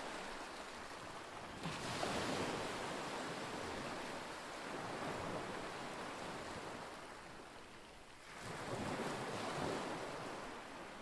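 Small lake waves washing onto the shore, with two larger washes: one about two seconds in and one near the end. A light wind blows throughout.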